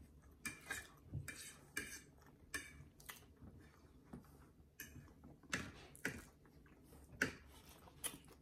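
Forks and a knife clinking and scraping on plates as food is cut and picked up: faint, irregular clicks, about a dozen, the loudest a little past the middle and near the end.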